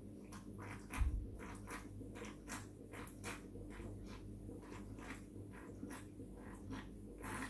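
Close-up gulping and swallowing from a drink can, a quick, even run of swallows at about three a second, with a low thump about a second in.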